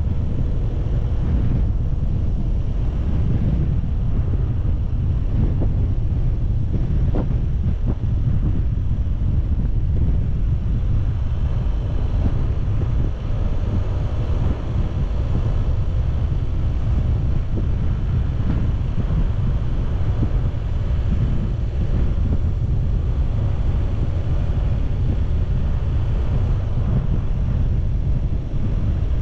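A car driving along a road: steady low rumble of wind buffeting the microphone, mixed with tyre and road noise.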